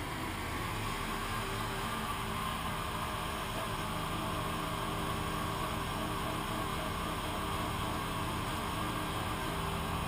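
Small riding tractor's engine running steadily at a constant pitch.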